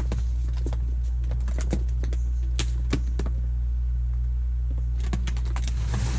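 SeaMax 12-volt electric air pump running with a steady low hum while inflating an inflatable boat, with scattered light clicks and knocks from handling.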